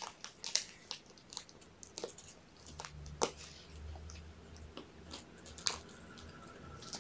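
Kittens chewing: a run of small, irregular crunching clicks. A low steady hum comes in about three seconds in.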